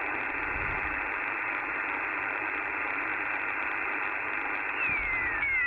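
Icom IC-R70 shortwave receiver's speaker hissing with 40-metre band noise, held to a narrow voice-width band, as the tuning dial is turned. About five seconds in, several whistling tones from signals on the band slide steadily down in pitch as the dial sweeps across them.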